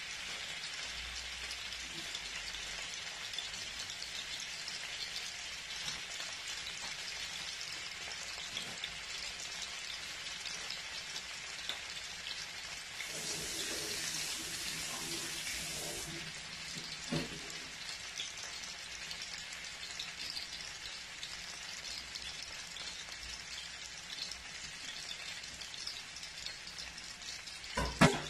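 Blocks of tofu shallow-frying in hot oil in a pan: a steady sizzle with scattered small pops. The sizzle grows louder and brighter for about three seconds midway, and a sharp knock sounds just before the end.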